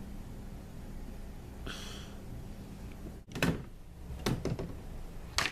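Plastic Play-Doh toys being handled: a brief soft rustle, then three sharp knocks in the second half.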